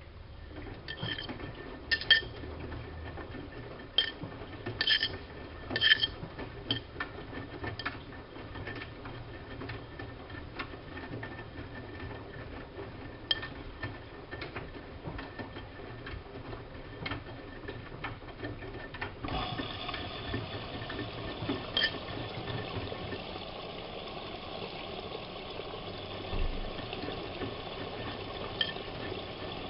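Siemens Siwamat IQ washing machine running a wash: water sloshing in the drum with scattered sharp clinks for the first two-thirds. About 19 seconds in, the sound turns into a steadier mechanical hum with a few held tones.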